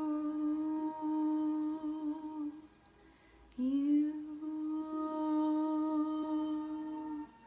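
Woman humming two long held notes at the same steady pitch, each about three and a half seconds long with a short breath-gap between them. The second note begins with a brief upward slide. This is vocal toning of the kind used in sound healing.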